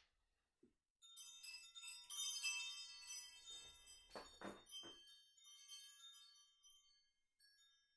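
Metal chimes ringing: struck about a second in and again shortly after, many high tones slowly fading out. A short, soft rushing noise about four seconds in.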